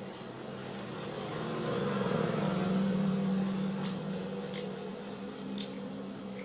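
Pork belly sizzling in hot frying oil, the sizzle swelling over the first few seconds and then easing, with a few small pops over a steady low hum.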